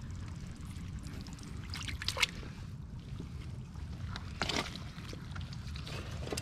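Shallow water and mud sloshing and splashing as a hand works in a flooded mud crab hole, with short splashes about two seconds in and again midway, over a steady low rumble.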